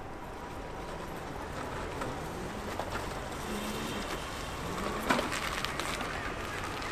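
Outdoor street ambience with a scooter passing close by, its motor sound rising a little as it approaches; a single sharp knock about five seconds in.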